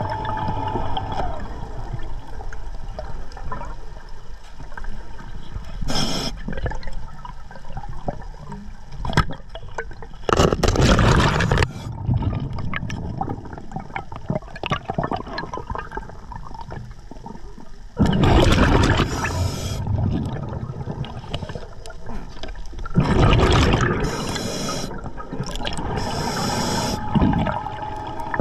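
Scuba diver breathing underwater through a regulator: exhaled bubbles rush and gurgle out in loud bursts every several seconds, with short hisses between them over a steady underwater rumble.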